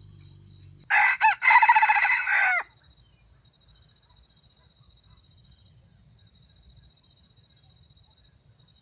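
A junglefowl rooster crowing once. The short crow starts about a second in, lasts about a second and a half, and ends abruptly.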